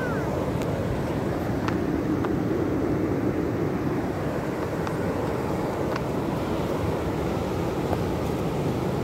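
Ocean surf breaking on the beach in a steady low rumble, with wind on the microphone.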